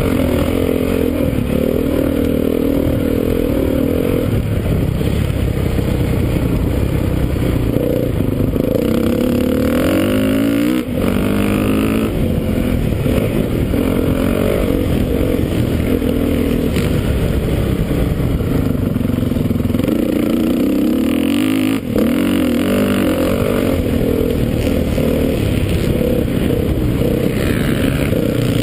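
2013 Honda CRF450's single-cylinder four-stroke engine, revving up and down as the bike is ridden hard around a motocross track, heard from the rider's helmet. The throttle is cut sharply twice, briefly, before the engine pulls again.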